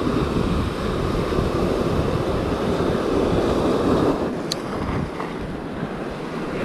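Sea waves breaking and washing over a rocky reef, with wind buffeting the microphone; a single short click about four and a half seconds in.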